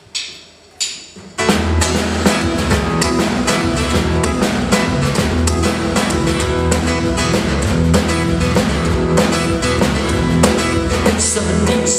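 Two count-in taps, then about a second and a half in a live rock band comes in: electric and acoustic guitars, bass guitar and drum kit playing an instrumental intro. The singing begins right at the end.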